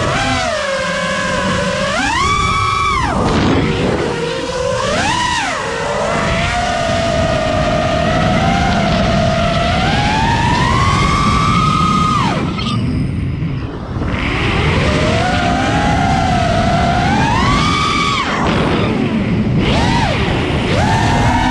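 FPV freestyle quadcopter's brushless motors whining, the pitch swinging sharply up and down with the throttle. There are several quick punches, and a long slow climb that cuts off suddenly about halfway through.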